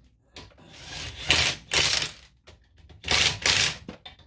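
DeWalt cordless impact wrench hammering a car wheel's lug bolts tight in short bursts, two bursts a bolt, the pairs about a second and a half apart.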